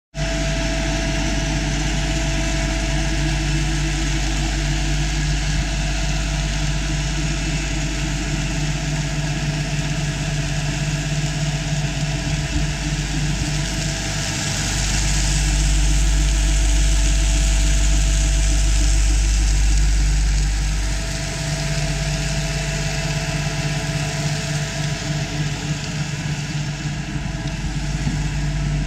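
Puffed snack food extruder line running: a steady machine hum with a low drone and a hiss. It grows louder for about six seconds in the middle, then settles back.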